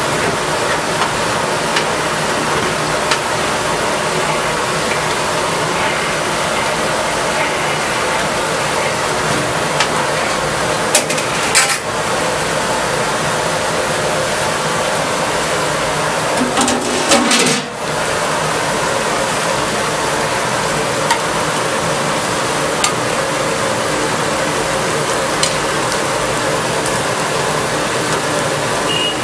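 Chicken legs deep-frying in hot oil in an iron kadai: a steady, dense sizzle with faint ticks and pops, broken twice by a brief louder noise about a third of the way and about halfway through. Near the end a metal slotted spoon stirs the pieces in the oil.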